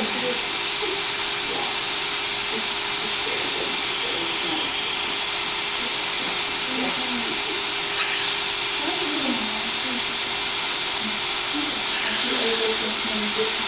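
Two short, sharp hiccups, about eight seconds in and again near the end, over a steady hiss with a low hum.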